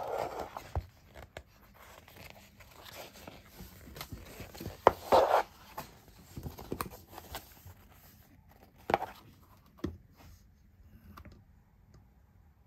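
Pages of a magazine being leafed through: paper rustling and crinkling in irregular bursts, the loudest about five seconds in, stopping shortly before the end.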